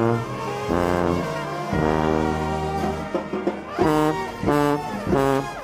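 A New Orleans brass band playing: trumpets and trombones over a sousaphone bass line. In the second half the horns hit three short, punchy stabs.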